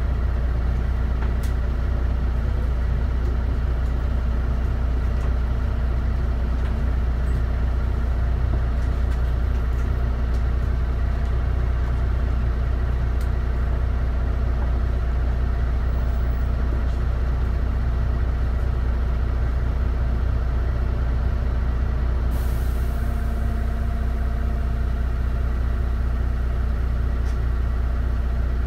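DAF DB250 double-decker bus engine running steadily with a constant low hum. About three-quarters of the way through, a sudden hiss of air comes in and slowly fades.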